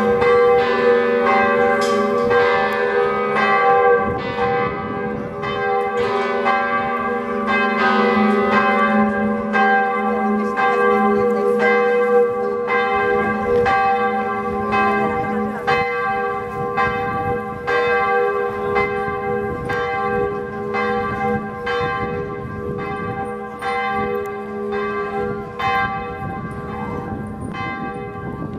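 Church bells pealing: overlapping strikes about twice a second, each note ringing on into the next. The sound eases off a little toward the end.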